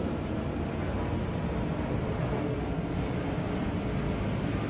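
Coal forge fire under a steady blast from its blower, a continuous low rushing rumble, as a blade heats in the coals before quenching.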